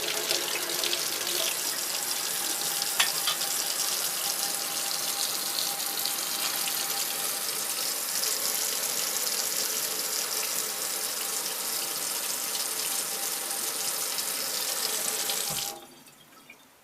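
Kitchen tap water running steadily, splashing onto an aluminium can lid held under the stream, with one sharp click about three seconds in. The water sound cuts off abruptly about a second before the end.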